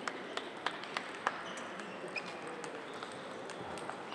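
Sharp clicks of table tennis balls striking bats and tables, about five in the first second and a half and fainter ones after, over the steady background noise of a large sports hall.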